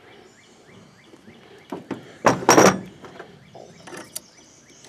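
Light clicks of metal hardware being handled, with one louder short scrape about two and a half seconds in, as steel washers are slid onto a threaded axle.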